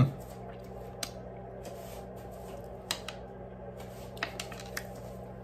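Metal spoon scooping soft soursop flesh: a few faint clicks and scrapes, about one a second, over a steady low hum.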